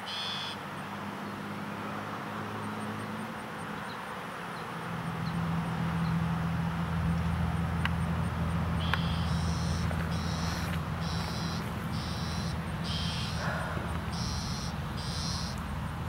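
A bird calling in a series of short, high notes, about nine over the last seven seconds, over a steady low hum that grows louder about five seconds in.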